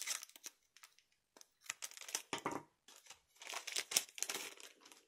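Foil trading-card booster pack wrapper rustling and tearing as it is opened by hand, in three rounds of rustling separated by short pauses.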